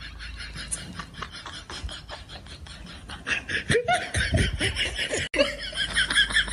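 Dog lapping water from a bowl in quick, even laps, then a person laughing from about three seconds in, louder than the lapping.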